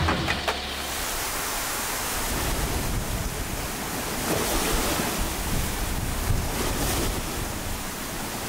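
Steady rushing of wind, rain and choppy sea surf in a storm, after a few last percussion beats die away in the first half second.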